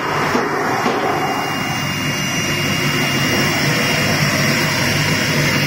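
Vertical CNC router running steadily: the spindle motor gives a thin, steady high whine over a constant rushing machine noise.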